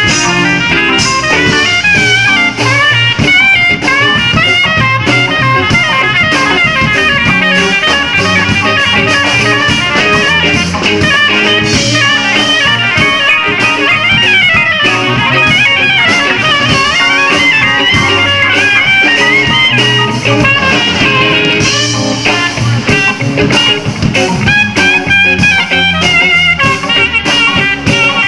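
Live jazz-funk organ quartet playing an instrumental: organ, soprano saxophone, electric guitar and drum kit over a steady groove, with fast melodic runs on top.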